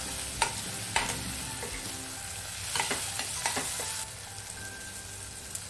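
A spatula scraping and knocking against a kadai as onions, tomatoes, green chillies and curry leaves are stirred while they fry in oil, over a steady sizzle. The stirring stops about four seconds in, leaving the sizzle.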